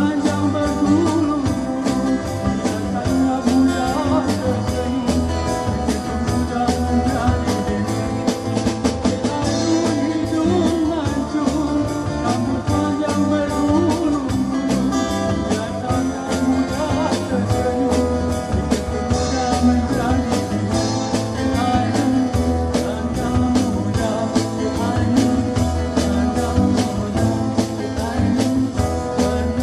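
Live band music: a man singing over a strummed acoustic-electric guitar and a drum kit keeping a steady beat.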